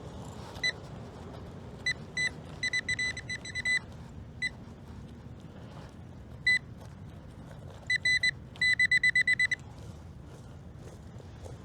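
Nokta Triple Score metal detector beeping with short, same-pitched high tones as its coil is swept over ground: scattered single chirps and quick runs of beeps, the longest runs about three seconds in and again about eight to nine seconds in.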